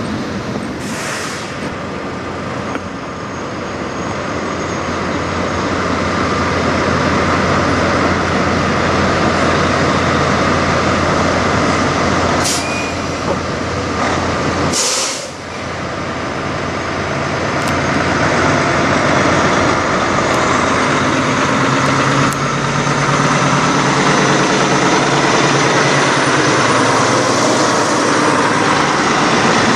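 Diesel semi-truck engines running steadily, with short air-brake hisses about a second in and twice more around the middle.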